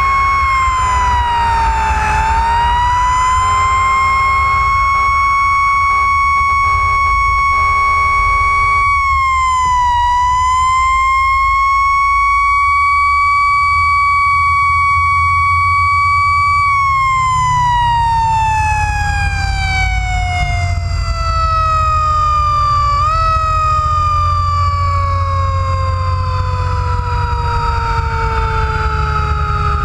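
Fire engine siren wailing slowly up and down around one pitch, then winding down in a long falling tone over the last dozen seconds, with a brief upward blip partway through the fall. Short intermittent horn blasts sound in the first several seconds, over the engine's steady low rumble.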